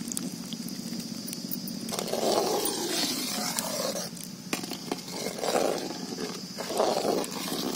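Boiling milk in a metal pot, with a steady low roar from the lit stove underneath. From about two seconds in, a perforated metal skimmer stirs the milk in uneven sloshing surges, with an occasional clink of metal on the pot, as the milk curdles after lemon juice has been added.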